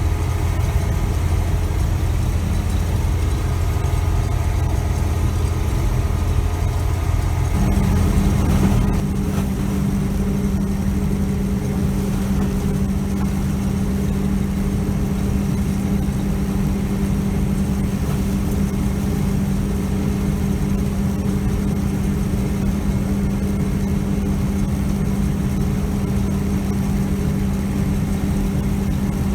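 John Deere 3300 combine running steadily under load while harvesting corn. About eight seconds in, its steady drone shifts to a slightly higher note after a brief rising sweep, then holds.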